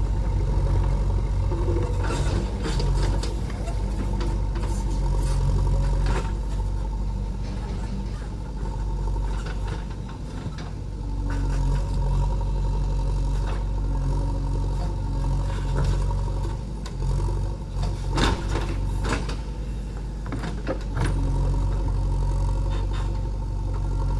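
JCB 3DX backhoe loader's diesel engine running steadily, with scattered knocks and rattles. The engine note dips about ten seconds in and again around eighteen seconds in.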